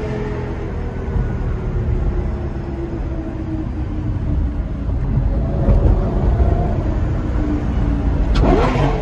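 Lamborghini Gallardo Superleggera's V10 running loud through an aftermarket 'F1' exhaust while driving. The engine note rises and falls slowly over a heavy low rumble, with a brief sharper rev burst near the end.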